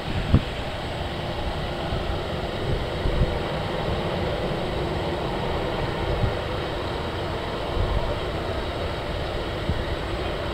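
Airbus A319 airliner's twin jet engines running at takeoff thrust, a steady rushing noise, as it begins its takeoff roll. Low thumps of wind hit the microphone now and then.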